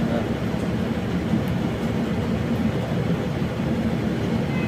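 A steady low rumbling hum with no distinct events.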